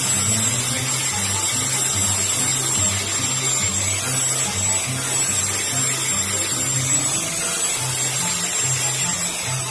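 Electric angle grinder running steadily with a high whine, its disc grinding down a wooden bolo handle, with music underneath.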